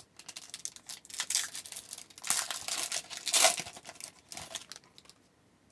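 A hockey card pack wrapper being torn open and handled, in a run of irregular scratchy rustles. The noise stops about five seconds in.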